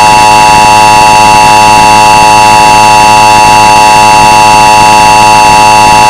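Emergency Alert System attention signal: a loud, steady two-tone alarm that holds without a break.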